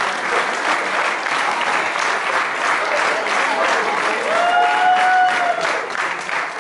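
Audience applauding steadily. About four seconds in, one voice lets out a long high whoop that rises and then holds for about a second and a half.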